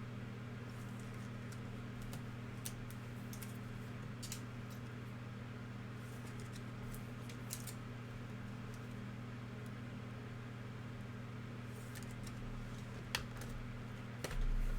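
Steady low hum with faint, scattered crinkles and clicks of trading-card packs and a hobby box being handled and opened. A sharper click comes about a second before the end, then a louder thump right at the end.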